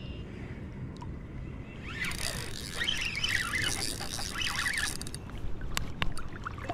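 Wind rumbling on the microphone over moving creek water. From about two seconds in there are short high chirps, and near the end a few sharp clicks.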